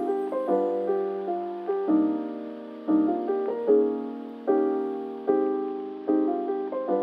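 Soft, slow background piano music, notes and chords struck about every half second to second and left to fade.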